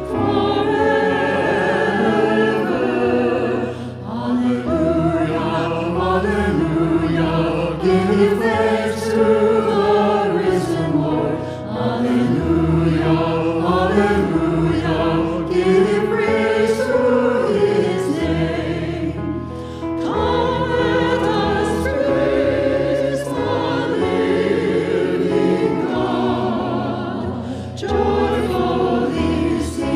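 A choir singing a hymn over steady low accompaniment, in long phrases with brief breaks between them.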